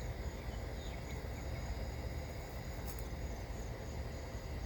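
Steady chorus of crickets, several high trills held without a break, over a low rumble.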